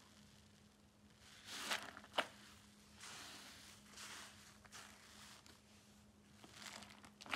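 Hand squishing and pulling foamy, bubbly slime: short bursts of soft crackling as air bubbles in the slime pop and tear, with a sharp pop about two seconds in and another near the end.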